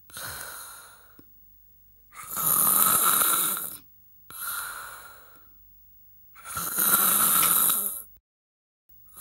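A man snoring loudly in his sleep, mouth open: two loud snores about four seconds apart, each followed by a softer, fading breath, then a short pause near the end.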